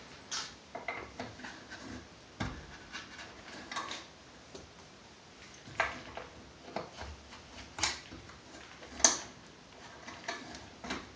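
Scattered light clicks, taps and knocks of an AR-15 upper receiver and gun vise block being handled and fitted together, with a few sharper metallic clicks about six, eight and nine seconds in.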